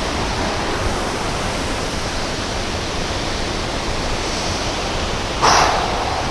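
Waterfall rushing with a steady roar of falling water. About five and a half seconds in, a brief louder burst of noise rises over it.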